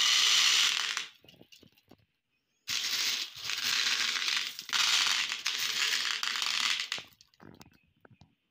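Small glass marbles clattering as a handful is poured onto a plate, then a few stray clicks, then about four seconds of continuous rattling and clicking as hands roll and rub the marbles together on the plate. A few single clicks follow near the end.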